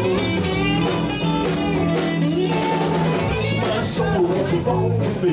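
Live rock-and-roll band playing an instrumental break with no vocals: electric guitars and bass over a drum kit keeping a steady beat.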